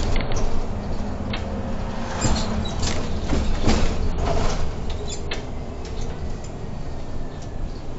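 Irisbus Crossway LE 12M bus heard from the driver's cab: a steady low engine and road rumble with scattered rattles, clicks and creaks from the bodywork and fittings, busiest a couple of seconds in.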